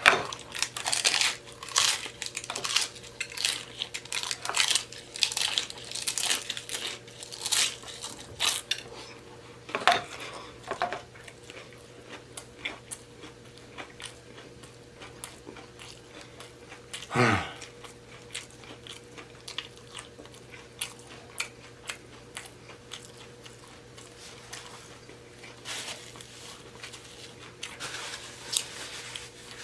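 Crunching bites of a hard taco shell and wet chewing close to the microphone, dense for the first nine seconds or so, then sparser, over a faint steady hum.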